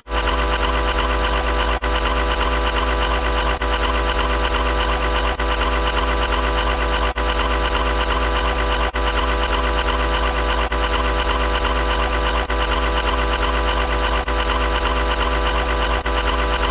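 A steady mechanical buzz, like a small motor or machine running, with a low hum under many steady tones. It breaks off for an instant about every two seconds, which sounds like a short sound effect being repeated.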